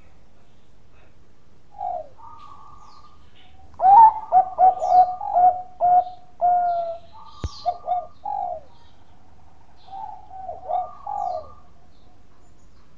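A Bangkok perkutut (zebra dove) singing its staccato cooing song. About four seconds in comes a quick run of short, loud coos, and shorter phrases follow. There is a single sharp click about halfway through.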